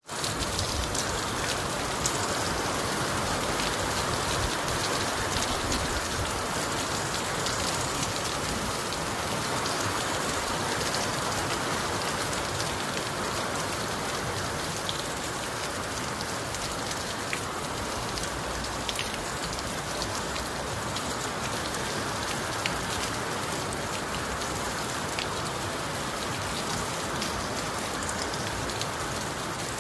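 Steady heavy rain falling on a surface, a dense, even hiss with many small drop ticks.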